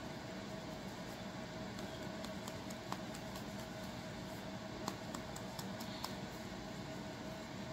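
Steady background hum and hiss, with a handful of sharp light clicks from about three to six seconds in: a comb tip and fingernails scratching through dandruff on a dry scalp in natural hair.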